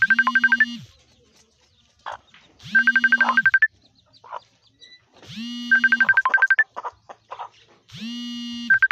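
A short electronic ringtone-style jingle looping four times, about every three seconds. Each time, a low tone slides up, holds for about a second and falls away under a quick run of high beeps.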